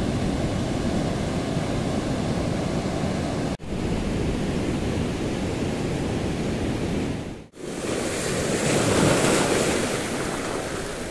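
Ocean surf washing in, a steady rush of breaking waves. It cuts out abruptly twice, and after the second break it is louder and hissier, with water churning over rocks.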